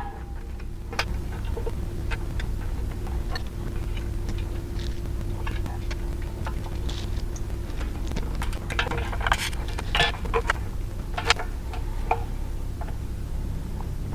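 Scattered light clicks and small metallic clinks of bolts and hand tools as the variable speed controller is fastened to its bracket on the belt grinder, over a steady low hum. The clinks come thicker about two-thirds of the way in.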